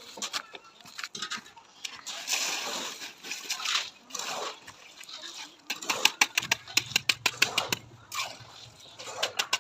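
Wet cement mortar being worked with a mason's trowel: irregular scrapes and slaps, turning about six seconds in into a quick run of sharp clicks, with a low hum underneath.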